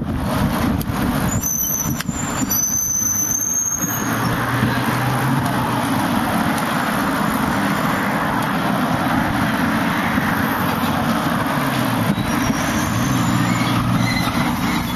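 Steady rush of wind on the microphone and road traffic noise while riding a bicycle along a busy city street. In the first few seconds there are two high brake squeals, a short one and then a longer, slightly rising one.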